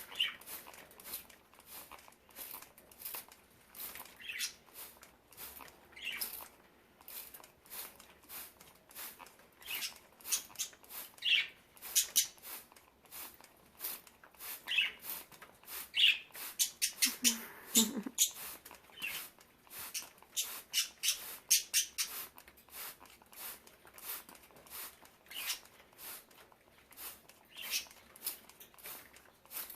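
Budgerigars chirping now and then while bathing in wet kale leaves, with a steady run of short crisp rustles and flutters.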